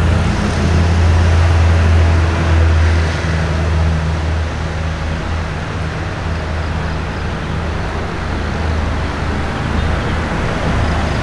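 Motor vehicle engine running steadily close by, a low hum, with road traffic noise.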